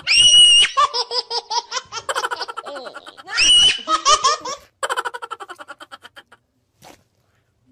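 A small child laughing hard: a high squeal followed by a quick run of giggles, twice, dying away about two-thirds of the way through.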